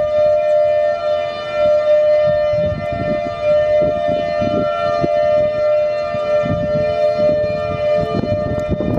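Federal Signal Thunderbolt 1000 outdoor warning siren sounding its steady alert tone: two close notes held level, without the sweep of rotation because its rotator is broken, echoing off the surrounding buildings. A lower note comes in near the end, over uneven low rumbling.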